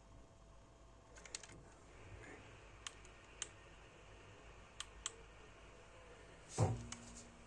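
A few light, separate clicks and taps from handling small plastic electronics parts, over a faint steady tone, with a louder soft knock about six and a half seconds in.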